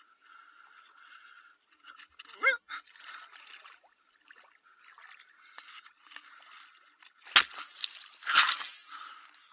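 Shallow sea water lapping and trickling around a swimmer wading in over rocks, close to the microphone. About two and a half seconds in there is a brief rising-and-falling cry. Near the end come a sharp knock and then a louder splash as the water is churned up.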